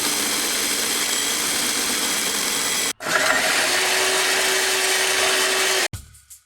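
Handheld electric drill boring through steel, running steadily under load. It cuts out abruptly about three seconds in, starts again at once, and stops shortly before the end.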